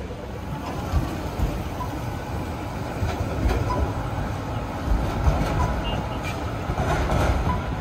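Melbourne city tram running along street track: a low rumble of steel wheels on rail, with several sharp clunks and knocks as it rolls over the rails.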